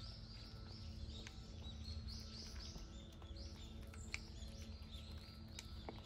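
Small birds chirping in quick, repeated high notes over a low steady hum, with a couple of sharp clicks.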